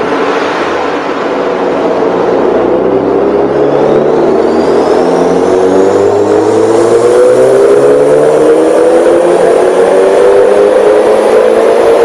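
2011 Mitsubishi Lancer Evolution GSR's turbocharged 2.0-litre four-cylinder engine at full throttle on a chassis dyno, its revs climbing slowly and steadily under load through a power run. A faint high turbo whistle rises with it from a few seconds in.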